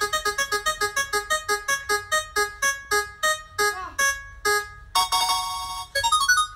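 Spinning prize-wheel sound effect played on bright keyboard notes: a fast run of repeated notes that slows steadily as the wheel winds down. A held chord comes about five seconds in, then a short rising run of notes near the end marks the wheel stopping.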